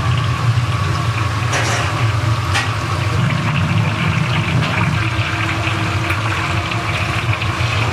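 Steady watery rushing over a constant low hum, from a commercial kitchen's cooking station.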